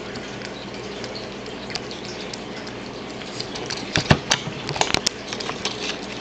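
Cat eating tuna from a plastic tub close to the microphone: faint wet chewing and smacking over a steady hiss, turning into louder irregular clicks and knocks about four seconds in.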